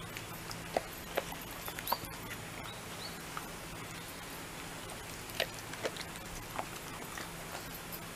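A Shiba Inu nibbling daikon leaves off a wooden deck, making scattered sharp clicks and taps. They bunch in the first two seconds and again around five to six seconds in.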